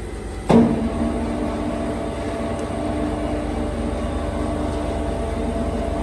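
A 350-litre vacuum stuffing mixer's motor switches on with a sudden jolt about half a second in. It then runs steadily with a humming tone, turning the mixing blades.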